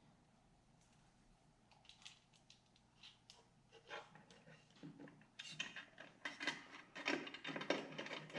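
Small metal and plastic headlight mounting parts (springs and retainers) clicking and clinking as they are handled and fitted. A few faint clicks at first, then a quick run of louder clattering from about halfway through.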